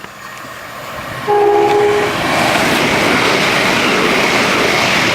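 Two coupled Class 377 Electrostar electric multiple units approaching and passing: a short two-tone horn blast a little over a second in, then the loud rush of wheels on rail as the train goes by.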